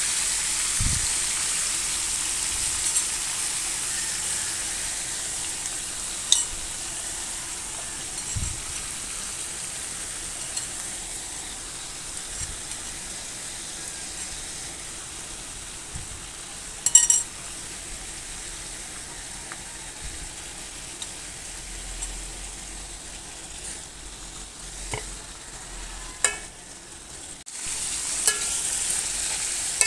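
Ensabi greens sizzling in a hot wok over fried garlic and anchovies, a steady frying hiss that slowly dies down as the leaves wilt, then grows louder again near the end. A few short clicks and knocks sound now and then, one louder knock about halfway.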